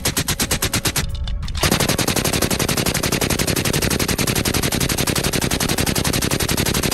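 Suppressed M240B 7.62 mm belt-fed machine gun firing fully automatic: a burst ending about a second in, a short pause, then a long continuous burst of rapid shots that cuts off at the end.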